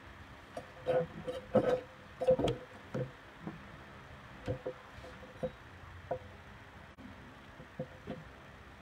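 Kitchen utensils knocking and clinking in an irregular string of sharp taps, some ringing briefly. They cluster most loudly about one to two and a half seconds in, then come more sparsely.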